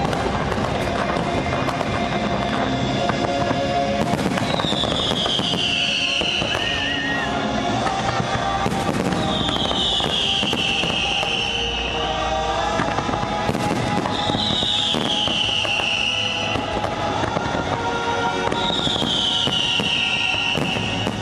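Fireworks bursting and crackling over the show's music, with many sharp bangs throughout. A high falling tone sounds about every five seconds, four times.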